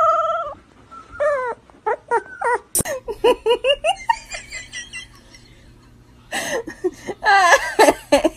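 A dog's long howl, falling steadily in pitch, ends about half a second in. A person then laughs in repeated short bursts, with a quieter lull in the middle and louder laughter again near the end.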